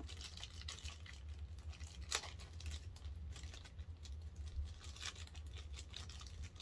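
Thin plastic bag crinkling and tearing as it is opened by hand, in scattered short crackles, the sharpest about two seconds in.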